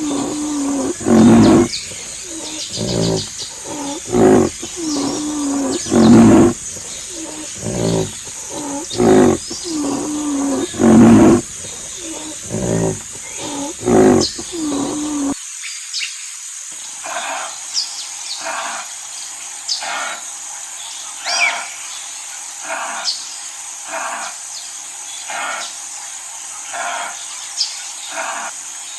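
Rhinoceros calling: a series of loud, low, drawn-out grunting calls, one every second or two. About halfway through, the sound cuts to shorter, fainter, higher calls repeating at a similar pace over a steady high-pitched hiss.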